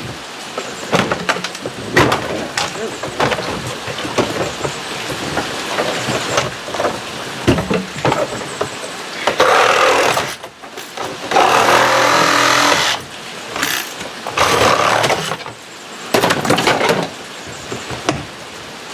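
Plastic interior trim being pried and pulled out of a 1999 Jeep Cherokee: repeated clicks and cracks of clips letting go, with louder stretches of plastic scraping and rattling about ten and twelve seconds in.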